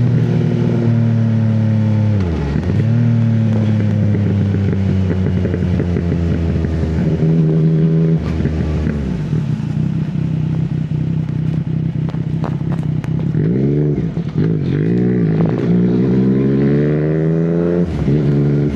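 Yamaha MT-09 motorcycle's inline three-cylinder engine running under way, its pitch mostly steady or slowly falling. The pitch drops sharply and recovers twice, a few and about nine seconds in. It rises and falls in several short revs near the end.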